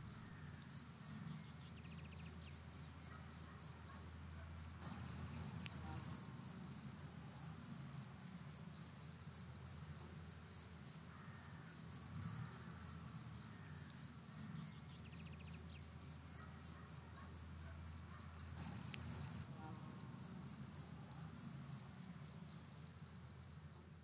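Cricket singing: a continuous high-pitched trill of rapid, evenly spaced pulses.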